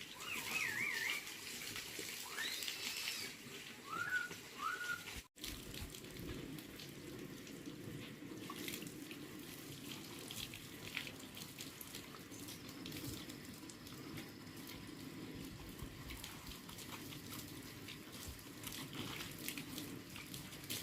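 Water running steadily, with a few short chirps in the first five seconds.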